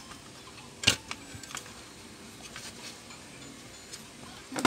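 Handling knocks from a Palit GTX 1050 Ti graphics card being moved about by hand on a silicone work mat. There is a sharp knock about a second in, a few light clicks after it, and another knock with a short low ring at the very end.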